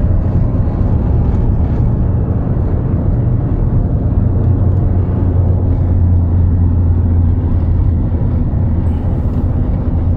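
A car's engine and tyre noise heard from inside the cabin while driving: a steady low drone.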